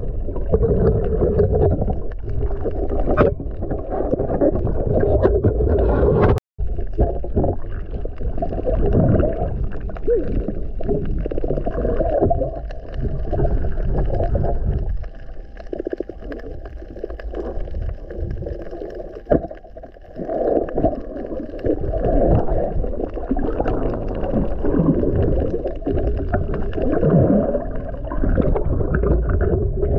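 Muffled underwater noise heard through an underwater camera: low rumbling, sloshing and gurgling water. The sound cuts out completely for an instant about six and a half seconds in.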